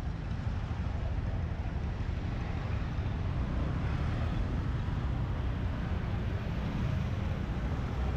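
Steady low rumble of street traffic heard from a moving motorbike, with small motorbike and auto-rickshaw engines running close by.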